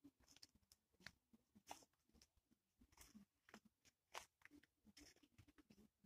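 Faint, irregular crunching of footsteps on a wood-chip mulch path.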